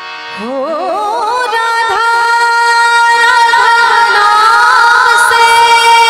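Woman singing a bhajan over harmonium: about half a second in her voice glides up with wide vibrato, then holds one long note while growing louder.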